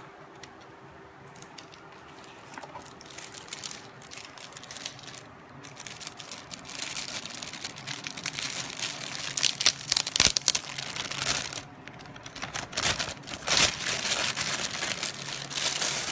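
Clear plastic bag crinkling as hands unwrap a camera body from it. It builds up after a couple of seconds and is loudest in two spells in the second half, with a short lull between them.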